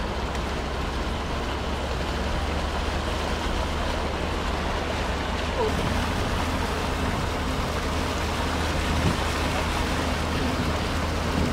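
Steady rushing noise of a wide expanse of floodwater, with a low rumble of wind on the microphone.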